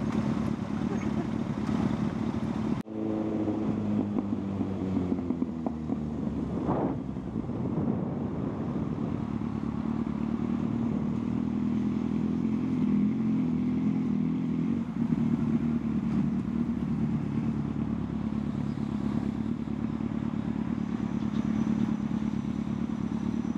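Motorcycle engine running at low road speed, with the engine note falling away just after a sudden break about three seconds in, then holding a steady low note with small rises and falls.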